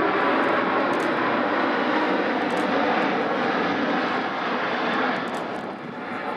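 Jet noise from an Airbus A380's four turbofan engines as it flies past overhead in a banking turn: a loud, steady rushing rumble that fades as the aircraft moves away near the end.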